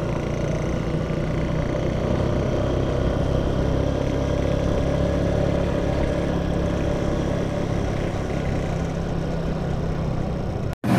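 Yamaha Jupiter MX 135's single-cylinder four-stroke engine pulling steadily under load in third gear up a steep climb, its exhaust very noisy from a leak at the header neck. The sound stops abruptly near the end.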